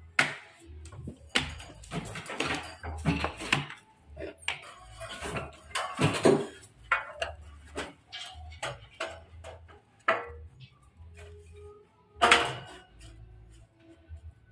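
Steel band saw blade clanking and rattling as it is handled and fitted onto the wheels of a large vertical band sawmill: irregular metallic knocks, the loudest about six seconds in and again about twelve seconds in.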